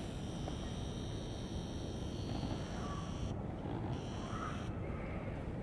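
Steady low outdoor rumble, with a faint high whine from a camera's zoom motor through the first three seconds that stops suddenly and comes back briefly about four seconds in.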